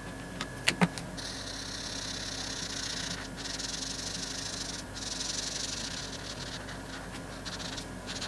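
Two sharp clicks just under a second in, then a felt-tip marker scrubbing across paper in steady colouring strokes, a continuous high hiss broken by two short pauses.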